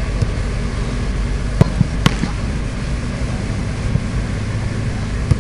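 Soccer balls being kicked in goalkeeper shot-stopping drills: a few sharp thumps, the loudest about two seconds in, over a steady low rumble.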